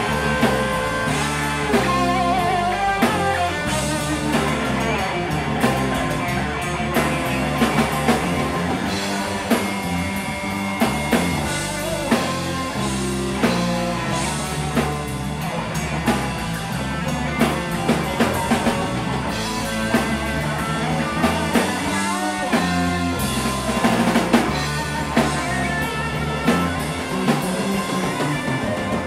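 Live rock band playing an instrumental passage: electric guitars over bass guitar and a drum kit keeping a steady beat.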